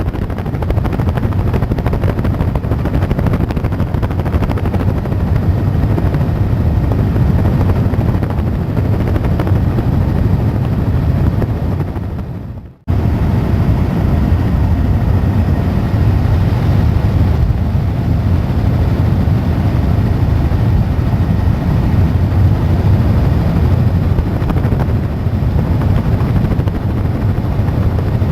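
Helicopter in flight heard from on board: a loud, steady, deep drone of rotor and engine. About halfway through it dips away for a moment and cuts back in abruptly.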